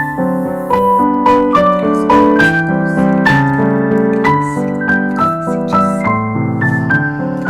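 Background music: a piano or electric piano melody with chords, notes struck every half second or so.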